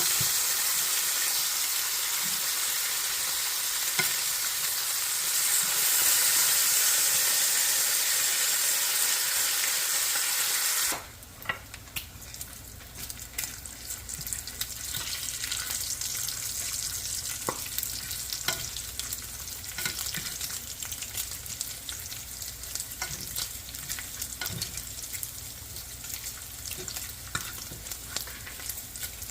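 Bacon frying in a pan: a loud, steady sizzle that drops off suddenly about eleven seconds in, giving way to quieter crackling with scattered pops.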